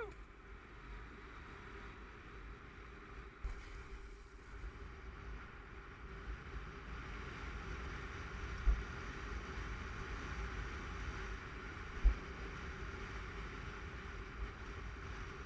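Wind buffeting an action camera's microphone and water rushing past on a choppy lake, a steady hiss with a faint hum underneath and low rumbling, and two stronger low thumps in the second half.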